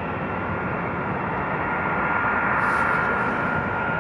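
Distant Boeing E-3A AWACS jet lifting off at takeoff power: its four TF33 turbofan engines make a steady rushing noise with a high whine held on one pitch, growing a little louder about halfway through.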